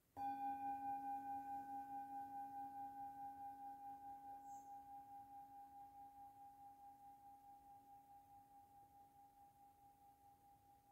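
A metal singing bowl struck once with a mallet, ringing with a few clear tones that fade slowly and waver in a steady pulse of about three or four beats a second.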